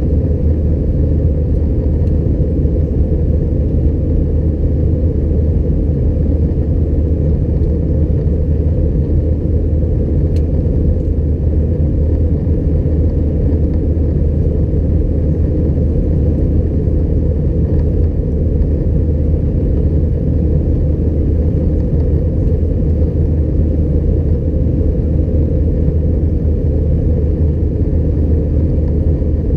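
Steady low rumble of an Airbus A320-211's engines and airflow heard inside the passenger cabin, holding an even level and pitch throughout.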